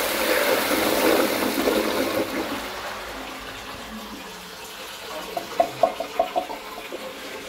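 A Shires Adelphi high-level cistern giving a very powerful flush through an open-rim pan: water rushes and swirls in the bowl, then tails off after about two and a half seconds. A quick run of short gurgles follows about five seconds in.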